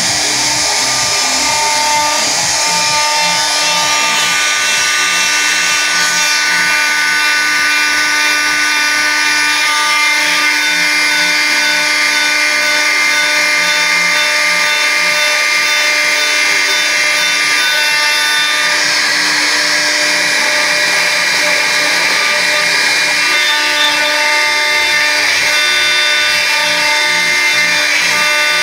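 Homemade CNC router working wood: the spindle runs continuously while the stepper motors whine, their steady tones shifting in pitch every few seconds as the machine moves along its cutting path.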